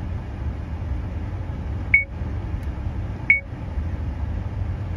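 70mai A200 dashcam's button-press beeps: two short, high beeps a little over a second apart as its menu buttons are pressed, over a steady low rumble.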